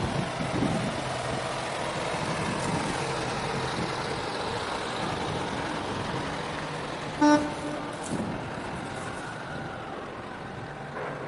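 Steady outdoor noise, with a single short, loud horn toot about seven seconds in.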